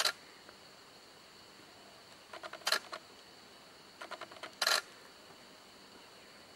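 Camera shutters firing in rapid bursts, three times: quick runs of clicks, each with a louder snap.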